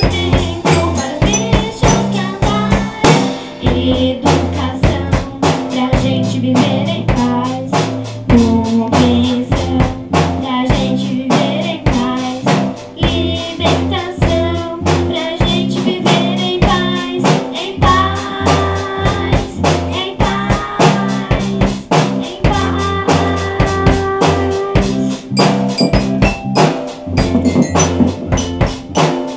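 A school band playing a song, with a drum kit keeping a steady beat over a stepping bass line and a higher melody.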